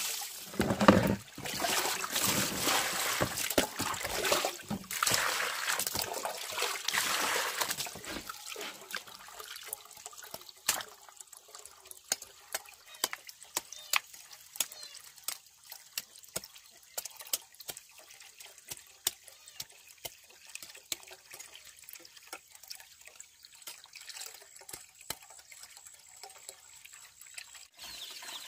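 Water pouring or running for about the first eight seconds, then a long stretch of scattered light clicks and taps.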